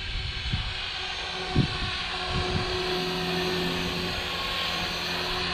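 Walkera V450D03 electric RC helicopter in flight: the motor and rotor give a steady hum that holds one pitch and comes through clearly from about halfway. Low gusts of wind thump on the microphone near the start.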